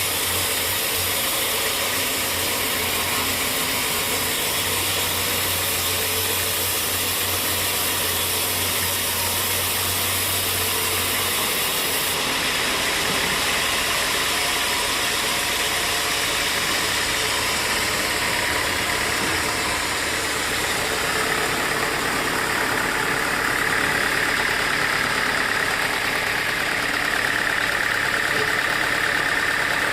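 Sawmill machinery running steadily, an engine-like drone. The sound shifts abruptly about twelve seconds in, and a higher whine near the end grows a little louder.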